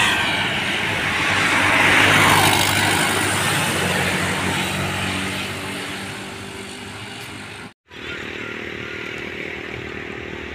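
Road traffic: motorcycles and a truck passing close by, engines and tyres loudest about two seconds in and then fading as they go. A sudden cut near the end leaves steadier, quieter traffic from vehicles further up the road.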